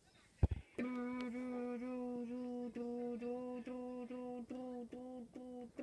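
A child humming a long run of short notes on nearly the same pitch, each note about half a second. A single soft thump comes about half a second in, before the humming starts.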